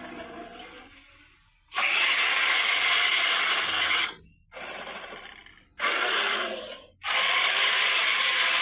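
Creature sound effect for a humanoid moray eel: a run of harsh, breathy rasping hisses. A long one comes about two seconds in, a softer short one and another short one follow, and a long one near the end is still going when the clip ends.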